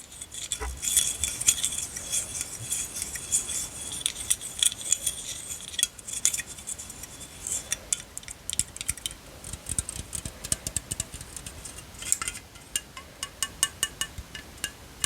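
Unopened aluminium Coca-Cola can handled close to the microphone: many quick, light metallic taps and clicks, with scratchy rustling through the first half.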